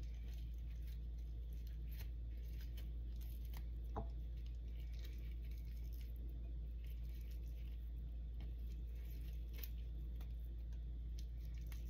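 Hands shredding a cooked chicken thigh: faint, soft squishing and tearing of the meat, with scattered small clicks, over a steady low hum.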